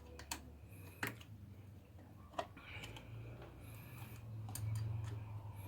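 A few sharp, irregular clicks and ticks from a screwdriver and metal screws as a wall outlet's mounting screws are tightened, over a low steady hum.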